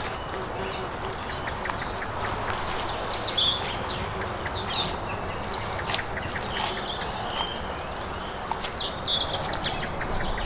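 Small birds chirping and twittering outdoors in many short high calls, over a steady background hiss, with a few sharp clicks.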